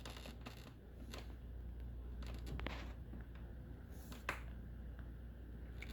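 Faint steady low hum of a running desktop PC's case fans, with a few light clicks and rustles, the clearest about two and a half and four seconds in.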